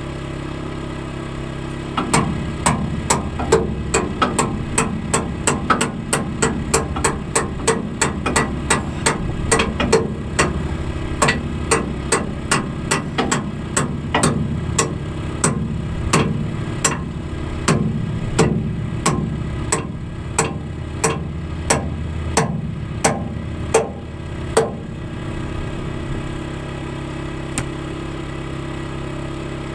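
Hammer strikes on steel, about two a second for over twenty seconds then stopping, with one last blow near the end: the retaining pin of a bucket tooth being driven into its shank, its rubber retainer getting chewed up by the blows. A Predator portable generator's engine runs steadily underneath.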